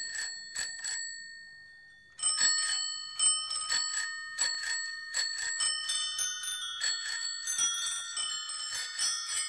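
Bicycle bells ringing. A few rings die away, then after about two seconds a rapid flurry of many bells at different pitches rings over one another.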